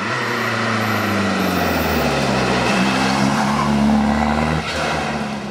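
Small hatchback rally car driving past at speed on a tarmac stage, its engine at high revs. The engine note dips, then climbs again after the middle, and eases off near the end as the car moves away.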